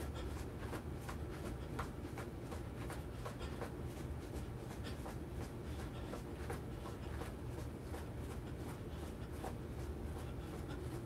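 Light rhythmic footfalls, about three a second, from a person exercising in place, over a steady low hum.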